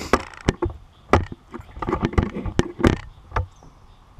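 Irregular crunching knocks, about three a second: footsteps on a dry pine-needle forest floor as the camera moves in, dying away after about three seconds.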